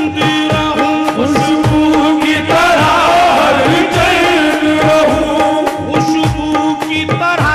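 Qawwali music: a harmonium holds steady notes over a regular hand-drum beat, while a male singer's ornamented, wavering vocal line comes forward a few seconds in.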